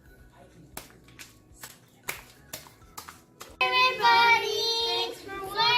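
Homemade slime squished in the hands, giving short sharp pops and clicks about twice a second. About three and a half seconds in, a child starts singing loudly in a high voice and drowns them out.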